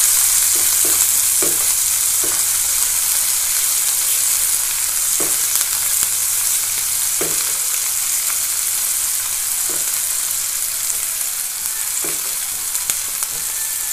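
Sliced onions sizzling in hot oil in a nonstick frying pan, being sautéed and turned now and then with a silicone spatula that brushes the pan briefly every few seconds.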